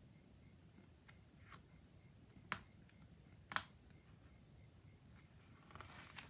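Near silence, broken by two sharp clicks about a second apart near the middle, a few fainter ticks, and a brief soft rustle near the end.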